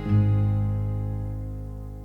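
Background music: a sustained chord struck just after the start, ringing on and slowly fading.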